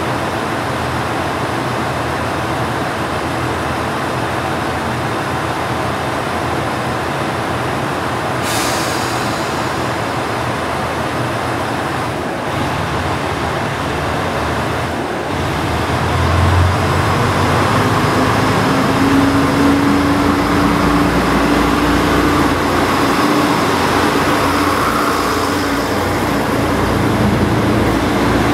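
Kyoto Tango Railway KTR8000 diesel railcar idling at the platform, with a short hiss of air about eight seconds in. About 16 seconds in the diesel engine revs up with a rising drone as the train pulls away.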